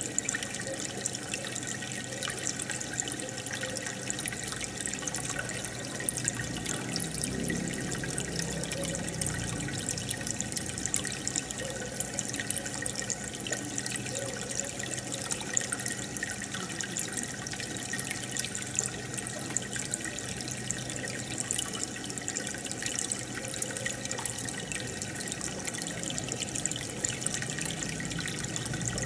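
Aquarium air bubbles rising and bursting at the surface in a steady fizzing, bubbling stream, over a low steady hum.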